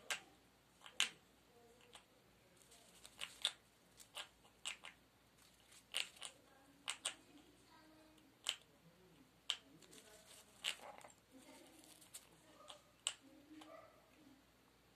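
Chestnut-fronted macaw biting and tearing a paper tissue with its beak: a string of sharp, irregular snips, one or two a second.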